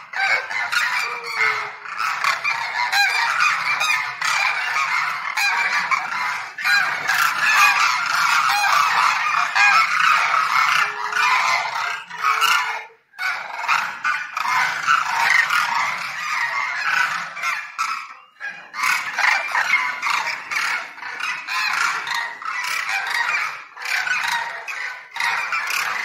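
A flock of demoiselle cranes calling together: many overlapping calls in a continuous chorus, with brief lulls about 13 and 18 seconds in.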